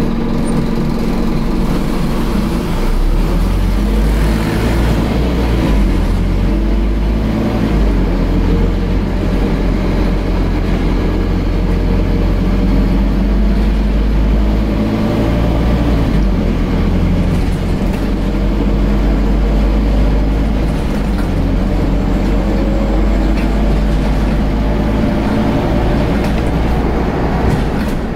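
Scania N230UD double-decker bus's five-cylinder engine and ZF automatic gearbox running under way, heard inside the upper deck. The engine note rises and falls several times as the bus drives.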